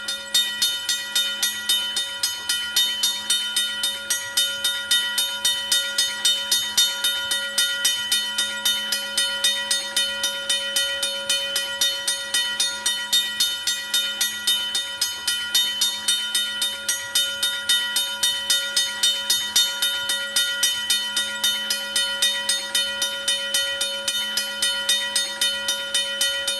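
Safetran mechanical railroad crossing bell ringing steadily, its striker hitting the bell about three to four times a second, each strike ringing on into the next. It is the grade-crossing warning that a train is approaching.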